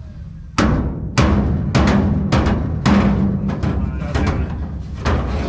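Hammer blows on a steel 4-speed shifter hump set in a car's floor pan, about two a second, each ringing on. The metal is being knocked down where it sits a little high, to bring it flush before welding.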